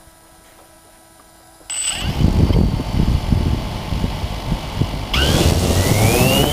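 A small motor, as on a radio-controlled model, spinning up about five seconds in, its pitch rising steadily. Before it, from about two seconds in, loud rumbling noise that starts suddenly.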